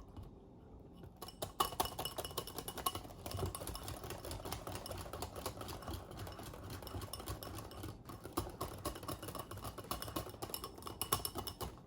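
Batter of egg, flour and cold water being beaten in a bowl with a utensil: a rapid run of small clicks and taps against the bowl, starting about a second in and going on until near the end.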